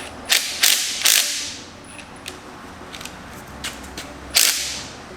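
Short, sharp bursts from an air impact wrench on the Ford 4.0L Intech engine's harmonic balancer bolt: three in quick succession, then one more about four seconds in, with light clicks of tools between.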